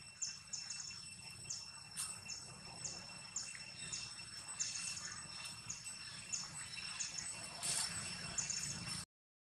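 Outdoor ambience of insects and birds: a steady high insect drone with a short, high chirp every half second or so. It cuts off abruptly near the end.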